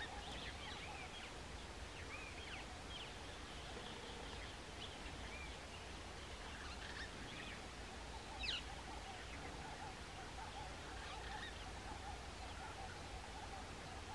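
Wild birds calling with many short, high chirps, and one louder call sweeping downward about eight seconds in, over a steady background hiss.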